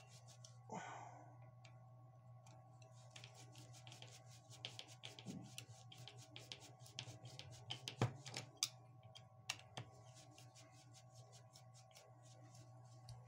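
Faint, rapid small clicks and scrapes of a screwdriver turning a screw into the plastic housing of a Bosch electric drill, with a few sharper clicks in the middle, over a steady low hum.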